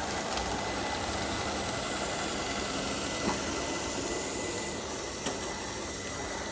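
iLife S5 robot vacuum running, a steady whirring noise with a thin high tone held throughout and three faint clicks.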